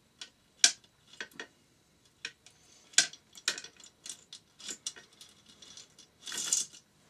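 Metal engine parts and hand tools being handled on a stripped-down Yamaha XT600 engine: a string of sharp clinks and clicks, with a longer scrape about six and a half seconds in.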